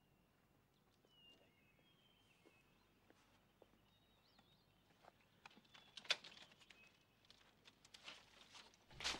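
Faint birdsong chirping, then from about five seconds in a series of light, sharp wooden clicks and knocks, loudest near six seconds and near the end, as bamboo sticks are handled.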